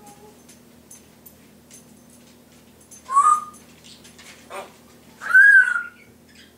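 Timneh African grey parrot whistling: a short loud rising call about three seconds in, a brief softer chirp, then a longer arched whistle that rises and falls near the end.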